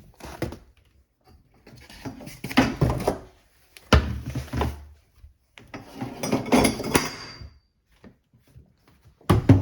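Cardboard packaging and animatronic parts being handled and pulled out of the box: bursts of rustling and scraping with a sharp knock about four seconds in.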